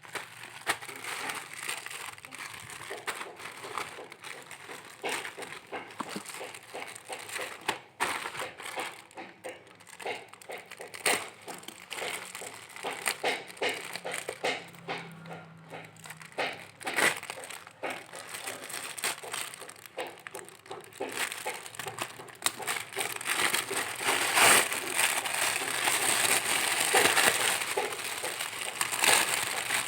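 Packaging crinkling and rustling as it is handled and opened, with dense irregular crackles that grow louder in the last third.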